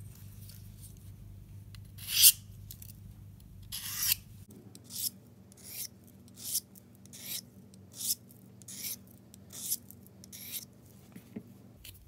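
Swiss Army knife blade stroked freehand along the rod of a Victorinox 2-in-1 sharpener: about eleven short rasping strokes, evenly paced at a little more than one a second, the first one about two seconds in the loudest. The blade was dulled on purpose and its edge is starting to come back.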